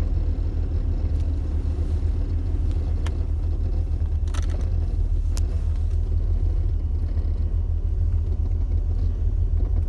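Jeep Cherokee XJ rolling downhill, heard from inside: a steady low rumble, with a few short sharp clicks or knocks from the brakes as the pedal is tapped.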